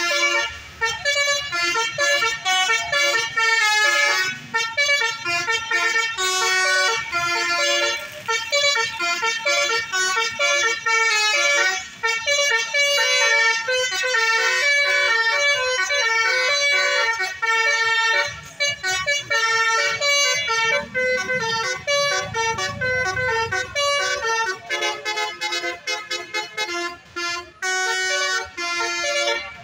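Bus 'telolet' horn, a multi-trumpet musical horn, playing a fast tune of short notes that change pitch several times a second, with brief breaks between phrases.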